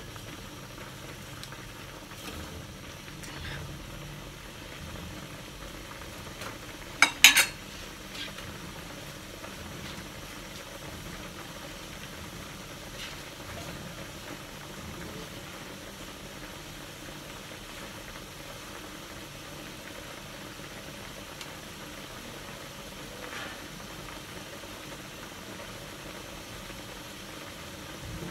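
Tocino pieces simmering in water in an aluminium wok, a steady bubbling hiss as the liquid cooks down. About seven seconds in come two sharp knocks.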